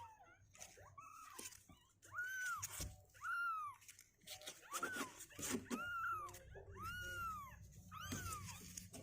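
Two-week-old kittens mewing over and over, about one call a second, each call rising and then falling in pitch.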